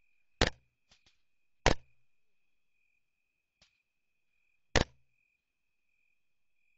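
Three rifle shots, the second about a second after the first and the third about three seconds later. Each is a sharp crack with a brief low thump after it, over a faint steady high whine.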